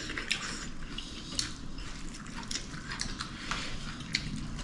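Light clinks and small wet clicks of a meal being eaten from plates, a dozen or so short ticks.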